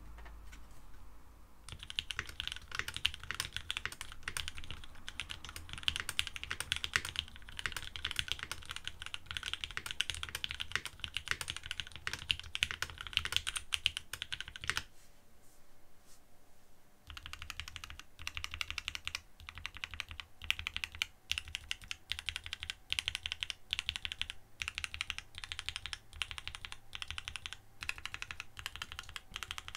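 Steady fast typing on a custom mechanical keyboard with lubed Gateron Yellow (KS-3) linear switches, an FR4 plate, a 3D-printed nylon case and GMK keycaps. The keys clack rapidly, stop for about two seconds midway, then resume.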